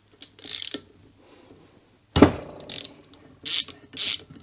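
Socket ratchet clicking in short bursts as spark plugs are unscrewed from a cylinder head, with a sharp knock a little after two seconds in. The clicking bursts come about every half second in the second half as the handle is swung back and forth.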